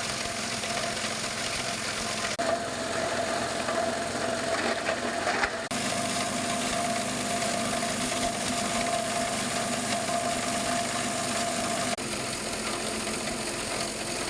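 Small plastic shredder machine running steadily, its motor humming with a rattle. The sound drops out briefly three times.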